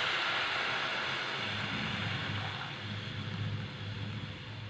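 Milk being poured from a packet into a hot pan of sautéed grated carrot and oats: a steady splashing hiss that fades away about halfway through as the pouring ends.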